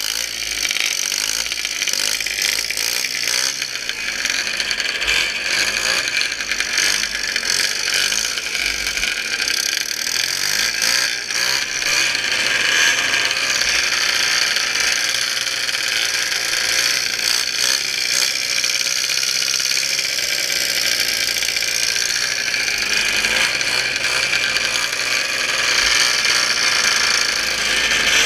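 Racing snowmobile's two-stroke engine running hard at steady high revs: a loud, high-pitched drone that holds almost unchanged throughout.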